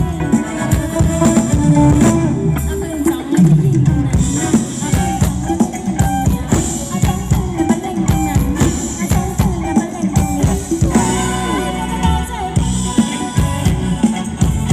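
Live band playing Thai ramwong dance music: a steady drum-kit beat under a sung melody.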